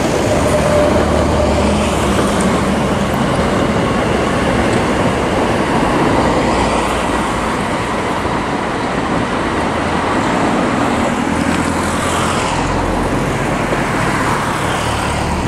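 Gatwick Express Class 387 Electrostar electric multiple unit running past on the line below, a loud, steady train noise throughout.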